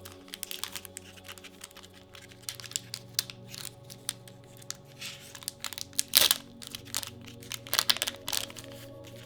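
Foil wrapper of a trading-card booster pack crinkling and tearing in short crackles, loudest about six seconds in and again near the end. Soft background music with steady low tones plays underneath.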